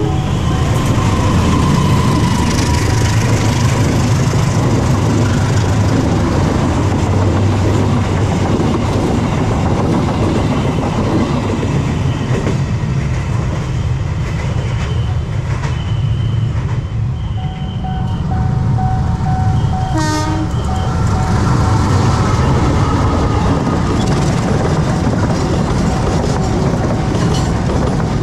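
Diesel-locomotive-hauled passenger trains passing close by: a steady heavy rumble and clatter of wheels over the rails, loud throughout, with a brief lull part-way through. A train horn sounds, and in the second half a level crossing's warning signal rings.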